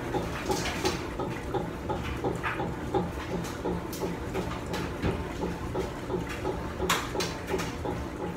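Coin-laundry washers and dryers running with a steady hum and a low pulsing churn a few times a second, with clicks and knocks as clothes and a top-loading washer's lid are handled.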